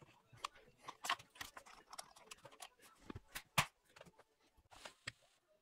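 Irregular clicks, clinks and light knocks of hand tools and metal parts being handled, with one sharper knock about three and a half seconds in.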